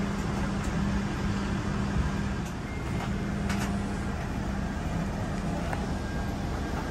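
A steady low mechanical hum over a constant rumble, with a few faint light clicks.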